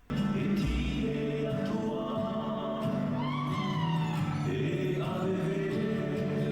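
Music with a group of voices singing together, cutting in abruptly at the start. One voice slides in pitch about three seconds in.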